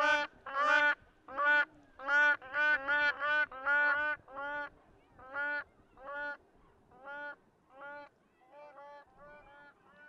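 Crowned cranes honking: a run of short, repeated honks, one or two a second, loud at first and growing fainter over the second half until they stop near the end.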